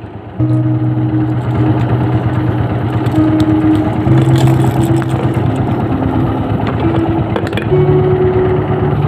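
Small boat's engine running steadily at trolling speed, a continuous low rumble.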